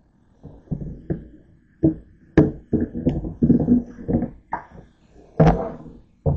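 Stainless steel mixing bowl being rinsed under a running tap: water splashing and sloshing in the bowl in irregular bursts, with sharp metal knocks as the bowl bumps the stainless sink, the loudest about two and a half and five and a half seconds in.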